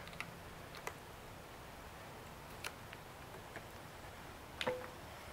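A few faint clicks and taps from handling the model glow engine's stand and controls, the sharpest near the end with a brief ringing note; the engine is not running.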